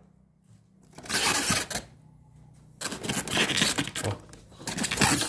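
Plastic embroidery machine being shifted in its styrofoam packing: scraping and rustling with small clicks and rattles. It comes in two spells, a short one about a second in and a longer one from about three seconds in.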